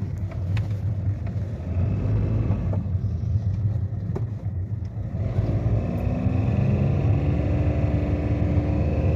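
2008 Toyota Vitz under way, with a steady low engine and road rumble. About five seconds in, a faint engine note rises slowly as the car tries to accelerate. It is not picking up power, the sluggish, jerky running of a car with an engine fault.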